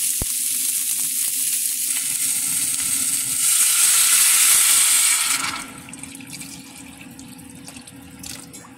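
Oxtail and onions sizzling in a hot stainless pan. About three and a half seconds in, the sizzling flares louder as water is poured from a metal flask onto the browned meat. After about five and a half seconds it drops to the quieter sound of water pouring into the pot.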